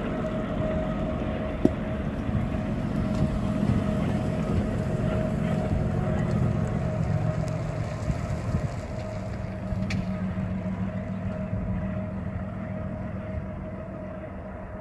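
Steady low engine rumble with a sustained, even tone over it, easing off toward the end.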